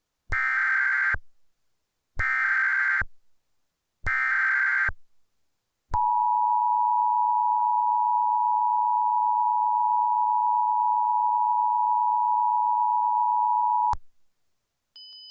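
Emergency Alert System tones. Three short bursts of SAME digital header data come about two seconds apart. They are followed by the EAS two-tone attention signal, 853 Hz and 960 Hz sounded together, a steady tone held for about eight seconds that cuts off suddenly.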